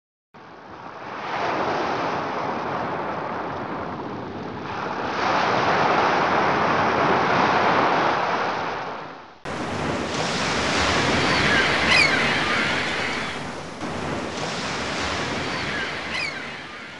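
Ocean surf breaking on a beach, swelling and ebbing in waves, with an abrupt splice to a second surf recording about halfway through. Two short high calls sound over the surf in the second half, and it fades out at the end.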